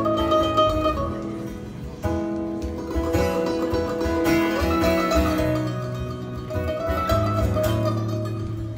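Mandolin and acoustic guitar playing together live, a folk tune with a moving bass line under picked melody notes and no singing.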